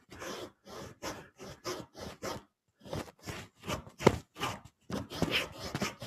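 Western handsaw with crosscut teeth (10° fleam, 15° rake written on the plate) cutting across the grain of a small wooden block in short, quick strokes, about three a second, with a brief pause near the middle. It is cutting the groove that separates the feather block from the body of a carved bird.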